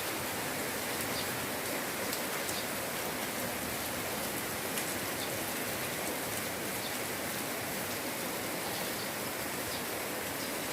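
Light rain falling steadily, a continuous patter with scattered small drop ticks.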